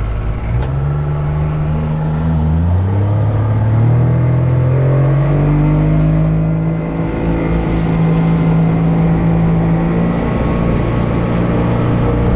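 Boat motor revving up over the first few seconds, running at a steady speed, then easing off slightly near the end.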